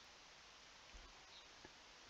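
Near silence: faint steady hiss of room tone, with a soft low thump about a second in and a faint click shortly after.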